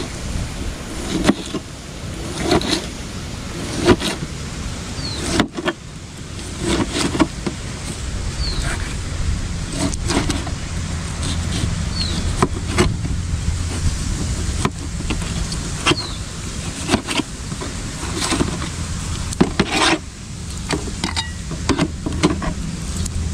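Knife chopping tomato on a cutting board: irregular short knocks, about one every half second to second and a half, over a steady low hum.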